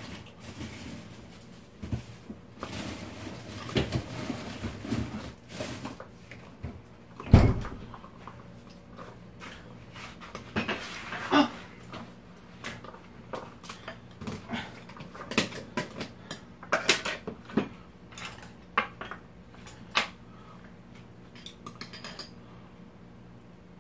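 Utensils clicking and knocking against bowls and dishes at a meal, in scattered short strikes, with one heavy thump about seven seconds in.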